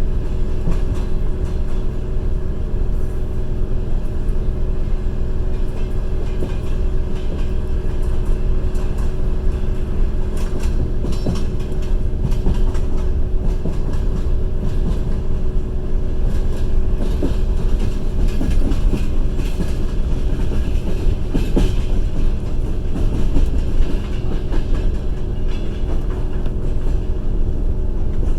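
Passenger train running at speed, heard from aboard: a steady rumble of wheels on rails with a steady hum and occasional clacks of the wheels over the track.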